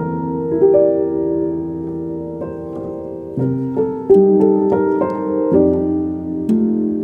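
Background music: slow, gentle piano chords.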